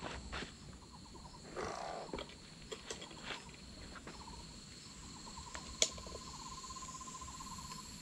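Faint outdoor ambience of insects and small animals calling: a steady high insect drone throughout, a brief lower call about two seconds in, and a rapid pulsing trill that sets in about halfway through. A few light clicks come through, the sharpest about three quarters of the way in.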